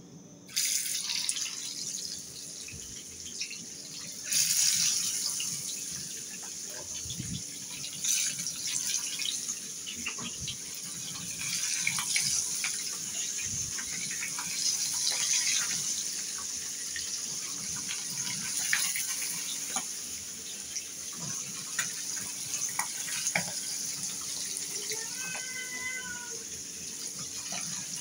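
Marinated fish pieces shallow-frying in hot oil in a frying pan, a steady sizzle with small crackles. It starts under a second in as the first piece goes into the oil and gets louder about four seconds in.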